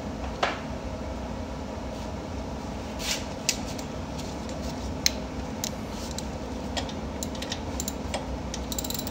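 Scattered light metallic clinks and clicks of ratchet sockets and hand tools being handled, with a quick run of clicks near the end, over a steady low hum.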